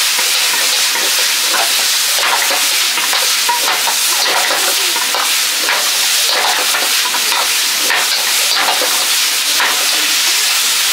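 Stir-frying in a restaurant wok: a steady loud sizzle, with a metal ladle scraping and knocking irregularly against the wok.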